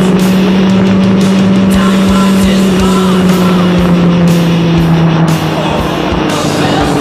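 Kawasaki Ninja 1000SX inline-four engine running at steady cruising revs, its pitch slowly falling and easing off about five seconds in, with rock music mixed in.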